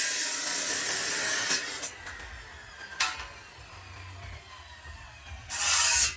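Workshop tool noise: a loud rasping hiss for about two seconds that then drops away, a sharp knock about three seconds in, and a short loud hissing burst near the end.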